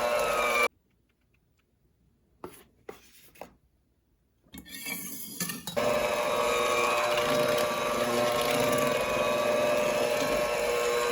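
Electric mixer beating pound cake batter. It cuts off under a second in; a few light knocks follow, and then the mixer starts again and runs steadily through the rest.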